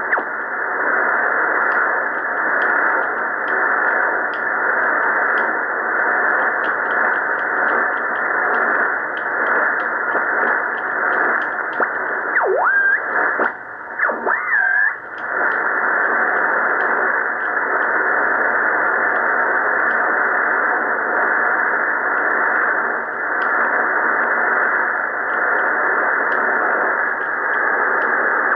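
Drake R77 marine HF receiver hissing with band static and crackles as it is tuned across the 14 MHz band, its audio cut off above about 2 kHz. About halfway through, whistling tones sweep up and down as the tuning passes over signals.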